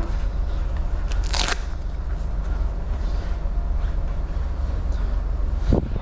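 Strong wind buffeting the microphone, a steady low rumble with a crackling texture, with a short burst of hiss about one and a half seconds in and a low thump near the end.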